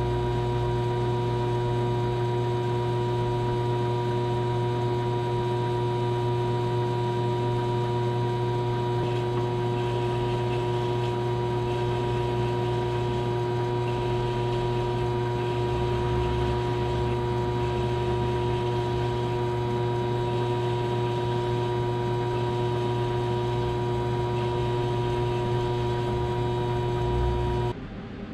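Small benchtop metal lathe running steadily with a constant hum, spinning a pool cue while its new leather tip is burnished, then switched off and stopping abruptly near the end.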